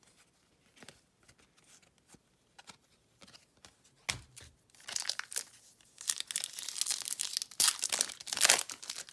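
Trading-card pack wrapper being torn and crinkled in the hands, loud and crackly through the second half. It is preceded by faint light handling clicks and a soft thump about four seconds in.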